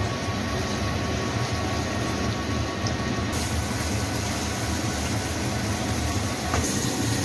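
Tofu cubes frying in shallow oil in a pan, a steady sizzle over a low, even hum.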